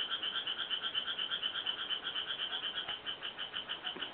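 A chorus of frogs calling: a fast, even pulsing trill, about eight pulses a second, at two pitches, going on steadily.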